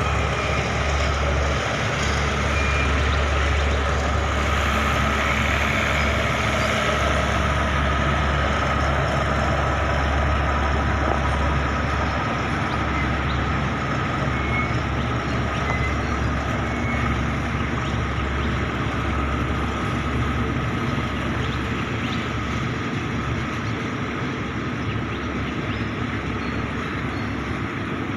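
Alsthom diesel-electric locomotive running steadily as it hauls the train away, with a low hum and a steady high tone over the engine noise, slowly fading in the last part.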